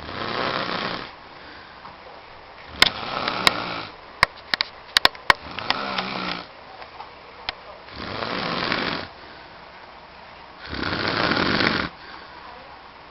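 A man snoring heavily: five long, harsh, rasping snores come about every two and a half to three seconds. A run of sharp clicks falls in the middle.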